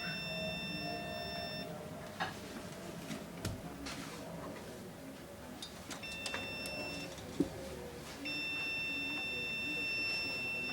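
Windows Vista computer beeping: a steady, high electronic beep tone in long stretches. One beep ends just under two seconds in, a short one sounds about six seconds in, and a longer one starts about eight seconds in, with a few sharp clicks in the gaps.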